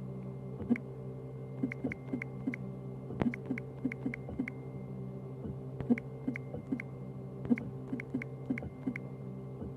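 3D printer at work: its stepper motors give short, irregular tonal chirps several times a second over a steady electrical hum.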